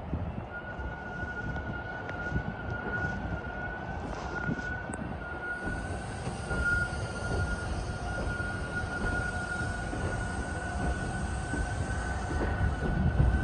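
TTC subway train rolling slowly on the yard tracks directly below: a dense low rumble with a steady high tone held above it, growing louder toward the end.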